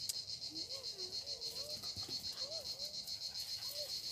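Insects chirping steadily in a high, rapidly pulsing trill, with a few faint short whines gliding up and down beneath.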